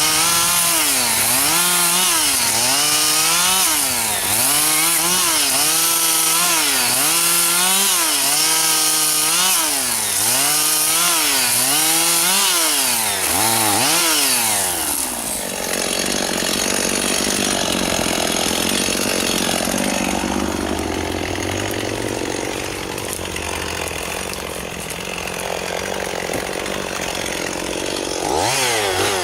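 Two-stroke chainsaw cutting wood, its engine pitch dipping under load and recovering about once a second. About halfway through it drops to a steady idle, then revs up again near the end.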